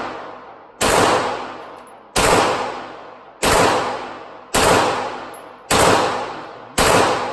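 Six gunshots fired one at a time at a steady pace, roughly one every second and a bit, each loud crack followed by a long, ringing echo that fades away before the next shot.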